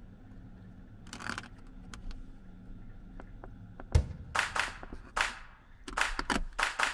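Steady low hum of small window-mounted ventilation fans. From about four seconds in comes a quick run of short, sharp scraping and rustling noises as a window shade and screen are handled.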